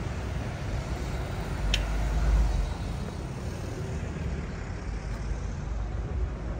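Street ambience with a car driving past, its tyre and engine rumble loudest a little over two seconds in. A single short sharp tick sounds just before that.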